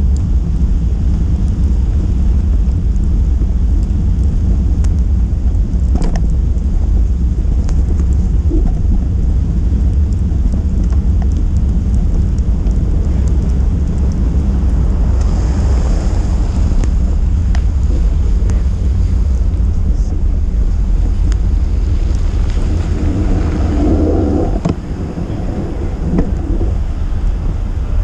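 Wind buffeting the microphone of a camera on a bicycle riding through a snowstorm: a loud, steady low rumble that eases briefly about three and a half seconds before the end.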